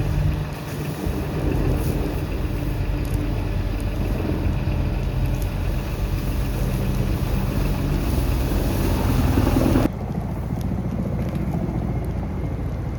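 Steady engine running under wind noise on the microphone. It cuts abruptly about ten seconds in to a quieter, similar rumble.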